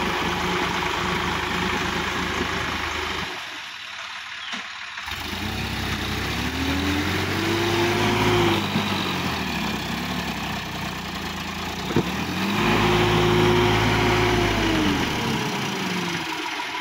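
Sonalika DI-50 RX tractor's diesel engine running as it is driven in deep wet mud. It revs up twice, each time holding high for about two seconds before dropping back, with a single sharp knock just before the second rev.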